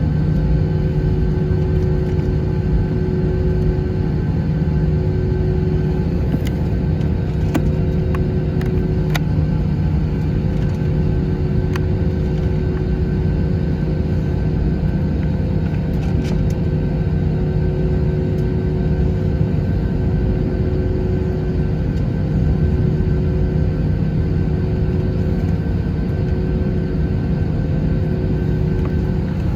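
Airbus A321-231's two IAE V2500 turbofans idling steadily, a low rumble with a constant hum of several pitches, while the jet waits on the runway for takeoff.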